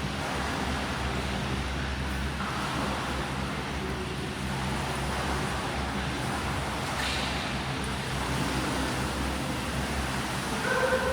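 Steady rumbling background noise of a swimming pool with a constant low hum. A brief hiss comes about seven seconds in, and a short tone just before the end.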